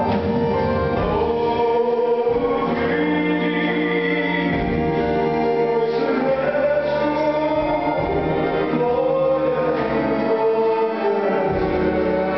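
A male singer sings a song live into a microphone, with musical accompaniment, in long held, sliding notes.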